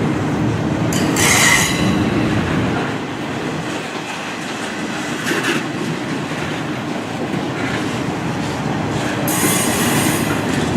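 Freight train rolling past, its wheels clattering on the rails, with high-pitched wheel squeal about a second in and again near the end.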